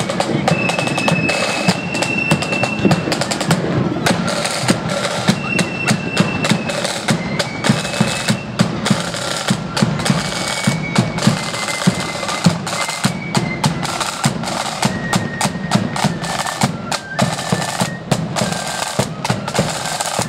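Marching flute band playing: a high flute melody moving in held notes over a dense run of snare drum strokes and a bass drum beat.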